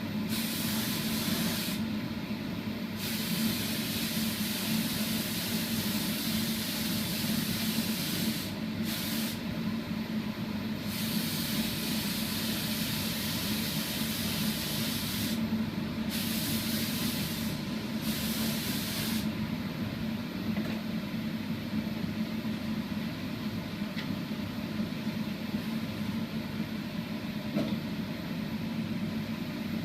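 Spray gun hissing in repeated passes as sanding sealer is sprayed, each pass starting and stopping, over a steady low hum of workshop machinery. The spraying stops about two-thirds of the way through, leaving the hum.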